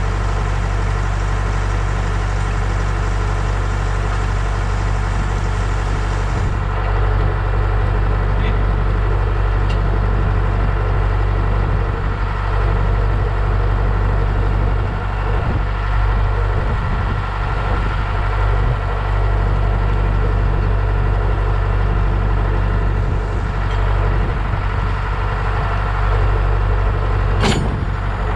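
Engine running steadily at an even speed, with a single sharp click near the end.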